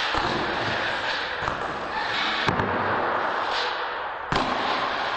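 Radio-controlled monster truck crashing and tumbling on a hard floor: about three sharp knocks, the last and loudest near the end, over steady noise from its motor and tyres.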